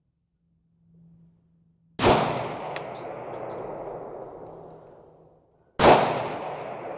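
Two shots from a Glock 20 pistol in 10mm Auto, fired about four seconds apart, each followed by a long echoing decay.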